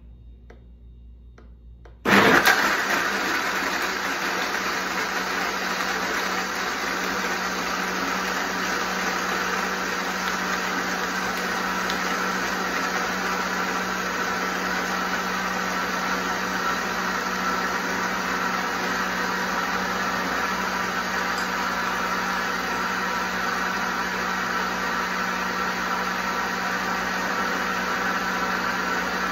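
Vitamix blender switched on at speed 8 about two seconds in, starting abruptly and loudest at the start, then running steadily as it purees soaked almonds, dates and water into almond milk.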